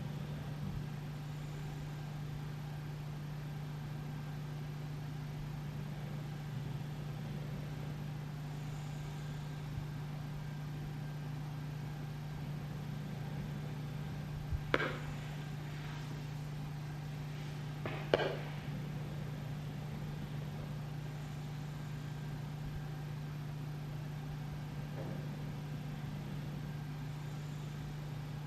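Quiet room tone in a house: a steady low hum with no rhythm, broken by two short, sharp sounds about fifteen and eighteen seconds in.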